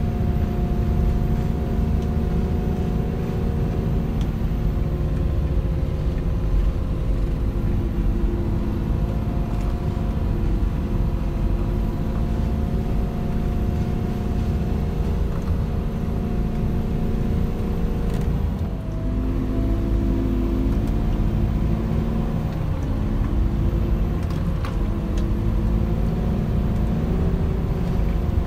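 The old D108A snow groomer's engine running steadily under load as it packs deep snow, a deep rumble with a steady whine over it, heard from inside the cab. About two-thirds of the way through, the engine note dips briefly, then steadies again.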